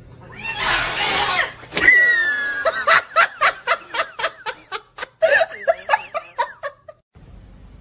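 A person laughing hard and high-pitched: a breathy shriek, then a long run of rapid "ha" pulses, about four a second, that cuts off abruptly near the end.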